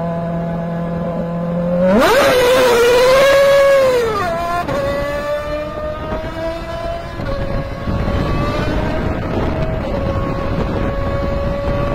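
Red Bull Formula 1 car's engine running at high revs. About two seconds in its pitch swoops up, wavers and falls away as it passes close by. It then holds a steady note that climbs slowly, dropping twice as it changes up a gear while pulling away.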